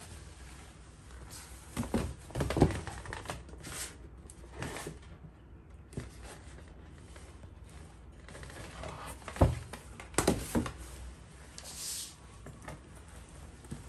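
Rustling and crinkling of a paper shopping bag and a cloth dust bag being handled on a table, in irregular bursts with a few sharp knocks, the loudest about two and a half seconds in and again about nine and a half seconds in.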